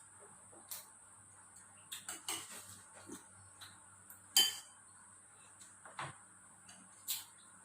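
Spoon clinking against a bowl in irregular taps and scrapes during eating, the loudest clink about halfway through.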